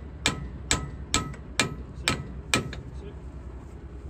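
Hammer blows on steel at a towing coupling: six sharp metallic strikes with a short ring, about two a second, stopping a little past halfway.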